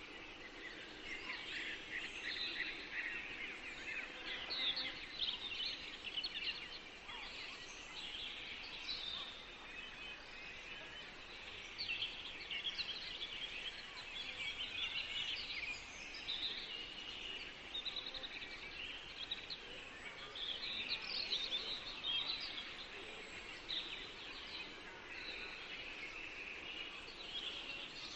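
Many small birds chirping and singing continuously, dense quick chirps over a faint steady background hiss.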